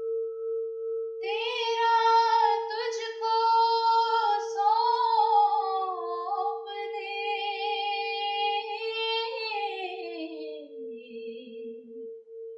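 A high voice sings long held, wavering notes and ends on a slow downward glide, over a steady, softly pulsing ringing drone.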